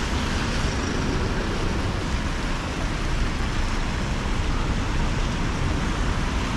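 Steady traffic on a rain-soaked city street: car tyres hissing through water on wet asphalt, under falling rain.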